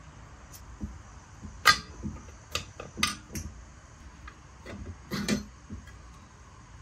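Scattered metal clinks and knocks from the internal parts of a Tillotson 212 engine being handled as its crankshaft is worked out of the crankcase. One sharp clank comes about a second and a half in, a few lighter knocks follow, and there is another small cluster near the end.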